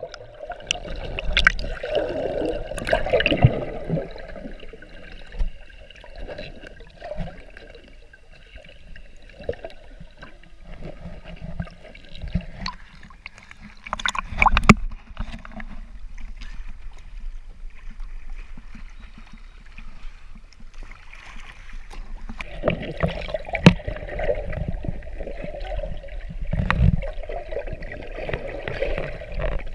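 Sea water gurgling and sloshing against a waterproof action camera as it goes under the surface and comes back up, muffled while submerged, with a few sharp splashes.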